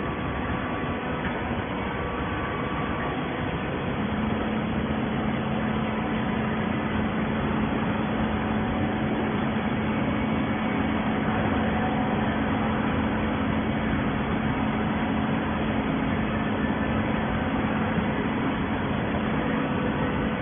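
Automatic-binding PET bottle baler running: a steady mechanical noise, with a steady hum that comes in about four seconds in and holds.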